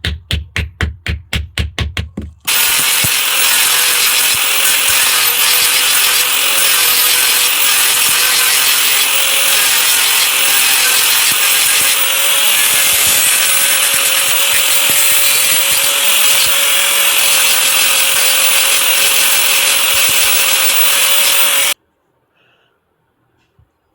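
Music with a fast regular beat for the first couple of seconds, then a loud, steady, rasping power-tool noise with a faint steady whine, cutting off suddenly near the end.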